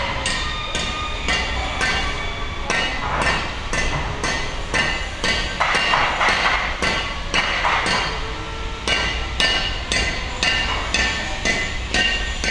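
Steady hammering on steel, about two ringing metal-on-metal strikes a second.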